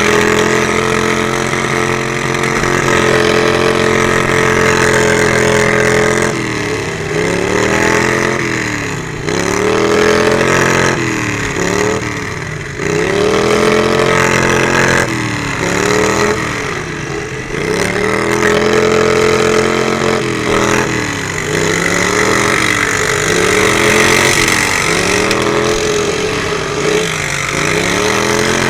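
Lawnmower derby mower's small engine running close up: steady for the first six seconds or so, then revving up and dropping back over and over, the pitch rising and falling roughly every second and a half.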